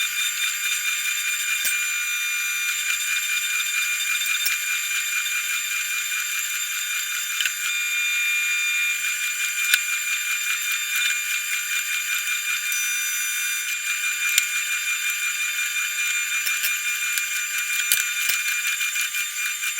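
Electric meat slicer running steadily while slicing part-frozen beef, a high whine with many small ticks and nothing low in it.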